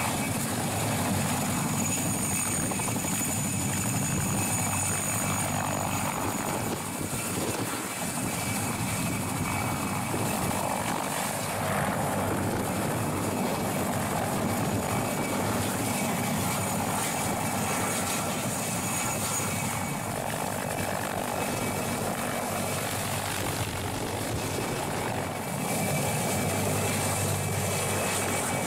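Mil Mi-2 helicopter hovering close by: steady rotor noise with a thin, high-pitched turbine whine from its twin turboshaft engines running through it.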